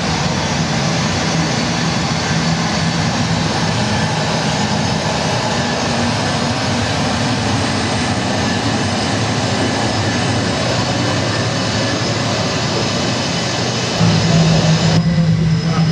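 Jet airliner takeoff sound played over loudspeakers for a model Boeing 747 taking off on an HO-scale runway: steady jet engine noise with a low hum under it. About fourteen seconds in the low hum grows louder, and a second later the high hiss drops away.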